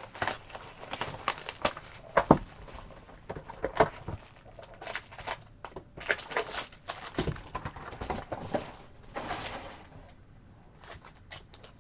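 Trading card pack being opened and its cards handled: irregular crinkling of the wrapper and rustles and clicks of cards.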